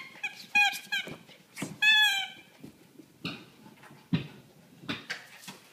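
A dachshund biting a squeaky rubber toy ball: a quick run of short squeaks, then one longer squeak about two seconds in. A few soft thumps follow.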